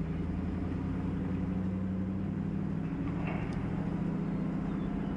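Truck engine running steadily at low speed while towing a trailer loaded with hay, an even hum.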